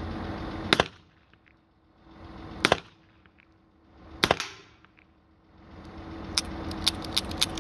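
.357 revolver firing .38 Special hollow-point rounds: three shots about two seconds apart. Several lighter clicks follow near the end.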